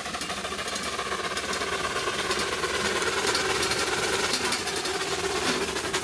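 4-inch scale Fowler BB1 live-steam ploughing engine running while driven along, a rapid, even mechanical beat that carries on steadily.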